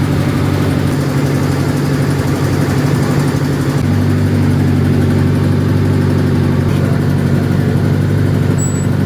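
Boat engine running steadily, a constant low drone whose tone shifts slightly about four seconds in.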